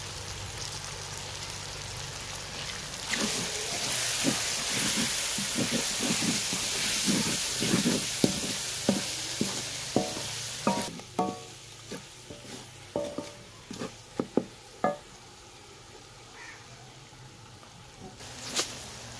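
Onion-tomato masala frying in oil in an aluminium pot, stirred and scraped with a wooden spoon: the sizzling swells about three seconds in and dies down after about eleven seconds. Then comes a run of sharp knocks with a short metallic ring against the pot, and one more knock near the end.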